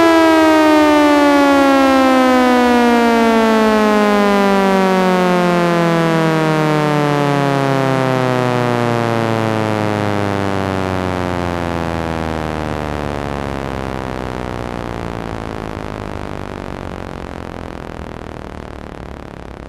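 Belmont B-115 warning siren winding down: one tone with many overtones sinks steadily in pitch and fades away.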